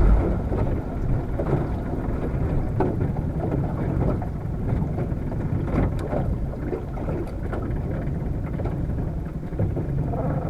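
Steady low rumble of a fishing boat on the water, with a few faint clicks, the clearest about six seconds in.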